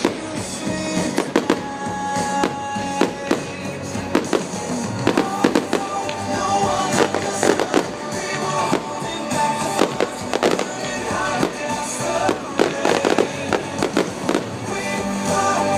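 Fireworks display: shells bursting in frequent sharp bangs and crackles at an irregular pace, with music playing underneath.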